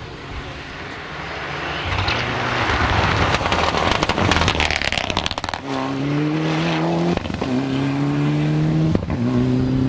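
Mitsubishi Lancer Evolution rally car's turbocharged four-cylinder engine at full throttle, growing louder as it approaches, with a spell of rapid crackling midway. It then pulls hard through the gears, the engine note rising in pitch and breaking off twice at upshifts.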